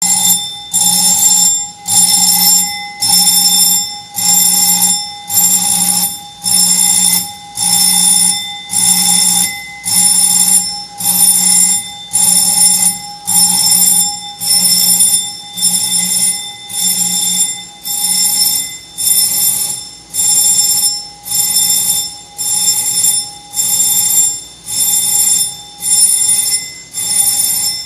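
An alarm ringing in even, repeated pulses, about one a second, each pulse holding several steady tones.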